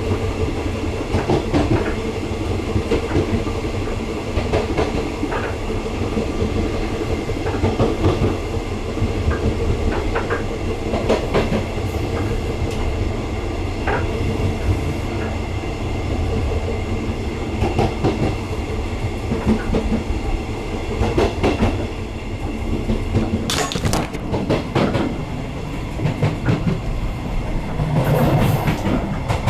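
Taiwan Railways EMU100 electric multiple unit running, heard from inside the car's end vestibule: a steady low rumble from the running gear with wheels clicking over rail joints and the car body rattling. Stronger knocks come about three quarters of the way through and again near the end.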